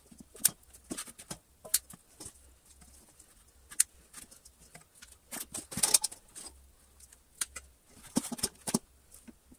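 Irregular sharp clicks and small taps from hand tools and small parts being handled, with a denser flurry of clicks a little past the middle.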